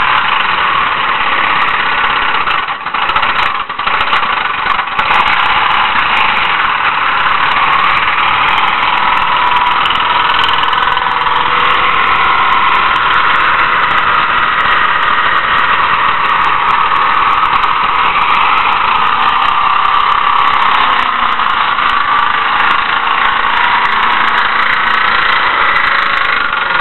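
Mercury Grand Marquis engine held at high revs in a burnout, rear tires spinning and squealing on the pavement, with the engine run out of oil and knocking a connecting rod. The sound is loud and steady, dips briefly a few seconds in, and cuts off at the very end.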